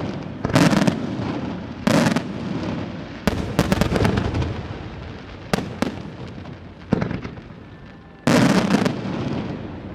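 Aerial firework shells bursting in a display: about six sharp bangs, spaced a second or two apart, with a quick cluster of cracks about a third of the way in. Each bang is followed by a rumbling echo that dies away.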